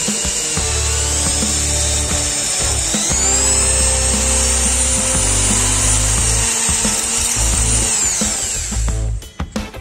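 Electric hand drill boring through a steel guide bushing into an aluminium engine block, its motor whine rising and falling in pitch as the speed changes. The bit cuts cleanly without grabbing in the aluminium. The drill stops near the end, followed by a few clicks.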